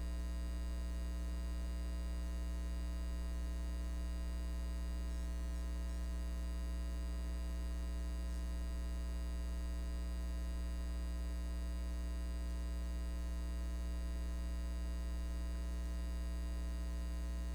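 Steady electrical hum with a buzzy edge, strongest in its deep low note, with many overtones above it and no change in level or pitch.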